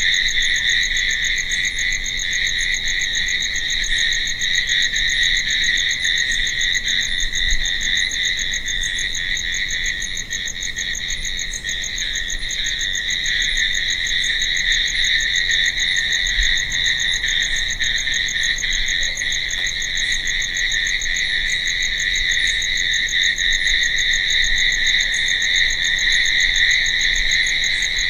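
Crickets chirping in a dense, unbroken night chorus that stays steady throughout.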